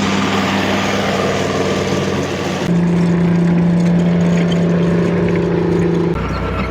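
Heavy vehicle engines running steadily with a deep drone, changing abruptly twice as the shots cut, about a third of the way in and again near the end.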